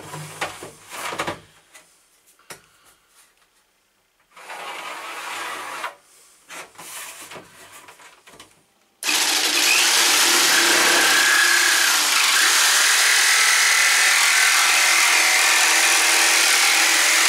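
Light handling and rustling over the first half. About nine seconds in, a jigsaw starts and runs steadily, cutting down the sleeve of a roof vent fan's white trim ring.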